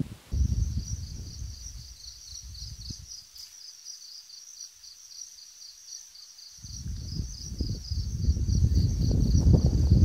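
Crickets chirping in a steady, high, rapidly pulsing trill that starts about a third of a second in and runs on without a break. Under it, a low gusty rumble of wind on the microphone dies away after about three seconds and builds back louder in the second half.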